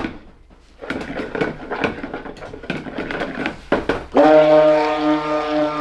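A stick (immersion) blender is switched on about four seconds in and runs with a steady, loud hum, blending cold-process soap batter. Shorter irregular sounds come before it.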